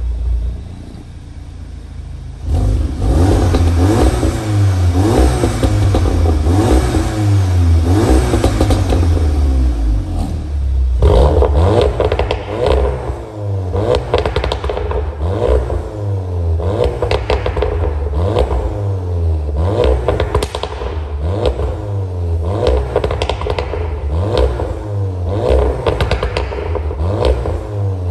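VW Golf 7R's 2.0 TSI turbocharged four-cylinder blipped repeatedly from idle through an EVOX ValveTronic valved exhaust, the revs rising and falling about once a second. First heard with the exhaust valves closed; about eleven seconds in it turns louder with the valves open, with crackles as the revs drop.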